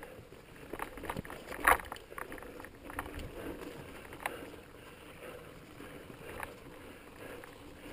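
Mountain bike rolling over sandstone slickrock: a steady rush of tyre and wind noise with a string of sharp knocks and rattles from the bike over bumps, the loudest a little under two seconds in.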